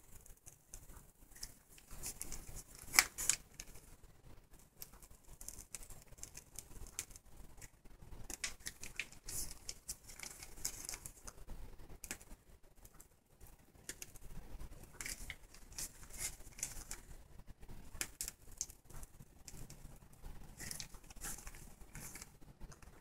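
Plastic piping bag crinkling and rustling in the hands as icing is squeezed out onto cupcakes, faint and irregular, with one sharper click about three seconds in.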